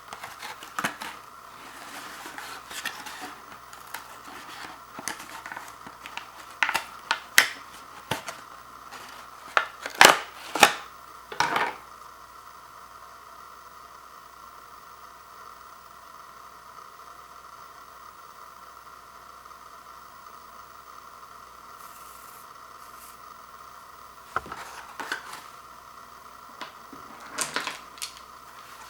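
Hard plastic clicks, taps and rattles as plastic toothbrushes and their plastic packaging are handled. The clicks come thickly at first, stop for about ten seconds, and return as a few more near the end.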